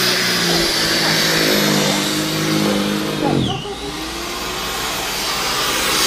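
Corded electric snow thrower's motor running with a steady whine over the hiss of thrown snow; about halfway through its pitch drops sharply, then climbs back up.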